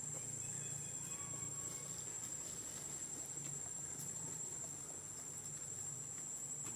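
Insects trilling, a steady high-pitched buzz that never breaks, over a faint low hum.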